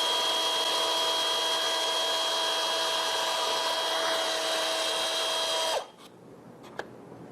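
Electric cable cutter's motor spinning up, running at a steady pitch with a high whine, then cutting off about six seconds in; a few faint clicks follow.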